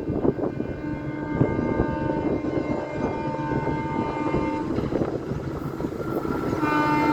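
Diesel or electric locomotive horn of an Indian express train: a steady chord of several tones held for about four seconds from about a second in, then sounded again near the end. Underneath is the rumble of the approaching train, growing louder.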